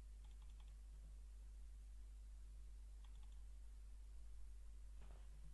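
Near silence with faint computer keyboard clicks in two short clusters, about half a second in and again about three seconds in, as a line of code is copied and pasted.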